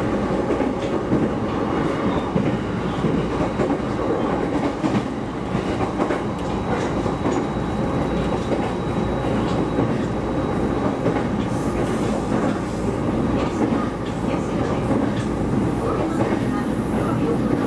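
Shinano Railway SR1 series electric train running on the line, heard from inside the carriage: a steady rumble of wheels on rail with occasional clicks over rail joints. A faint high whine joins about twelve seconds in.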